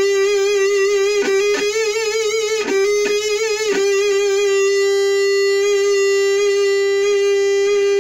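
Distorted electric guitar, a Jackson KVXMG through an Orange Micro Dark amp, holding one high note. For the first four seconds it is re-picked a few times and shaken with wide vibrato. Then it rings on steady with long sustain, not cut off by the amp's built-in noise gate.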